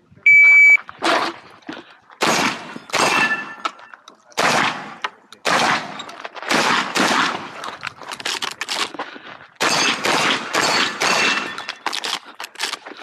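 A shot timer beeps once at the start, then a shotgun fires a long string of shots at uneven intervals, roughly half a second to a second apart, as an IPSC stage is shot.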